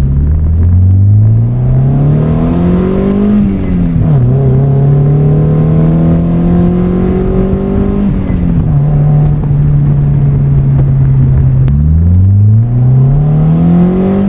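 Toyota MR2 Spyder's 1ZZ four-cylinder engine, breathing through an AEM cold air intake, pulling hard on a test drive. The pitch climbs and drops sharply at each gear change, about three and a half seconds in and again at about eight seconds, holds fairly steady between, then climbs again near the end.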